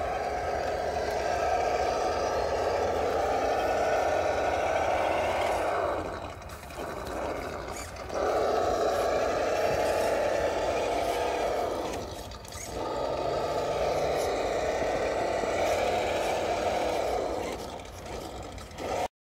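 Electric motor and gearbox of a radio-controlled scale crawler whining under throttle as it climbs over logs, easing off briefly twice before picking up again. The sound cuts off abruptly near the end.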